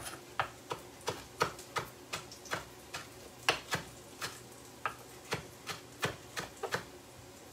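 Knife chopping parsley on a wooden cutting board: a run of sharp knocks, about three a second and slightly uneven.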